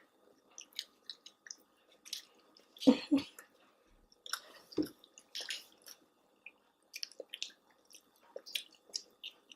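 Chewing: close, wet mouth sounds and lip smacks from people eating chicken nuggets, irregular and soft with a few louder smacks.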